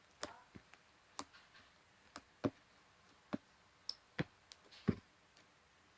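Slime being squished, giving about a dozen irregular sharp clicks and pops that stop a little after five seconds in.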